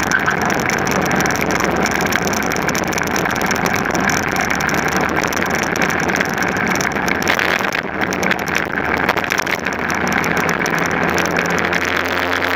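Racing kart engine running hard at high revs, heard from an onboard camera mounted low on the kart, mixed with heavy wind and tyre-on-tarmac noise. The sound is steady and loud throughout.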